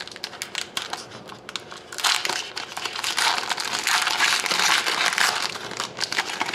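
Plastic wrapper of a hockey card pack being torn open and crinkled by hand: a dense crackling that grows louder about two seconds in.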